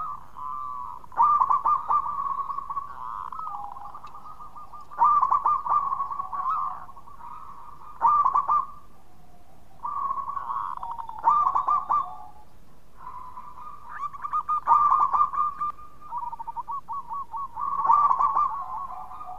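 Zebra dove (perkutut) cooing: loud phrases of rapid, rolling coos repeated about every three to four seconds, with softer cooing in between.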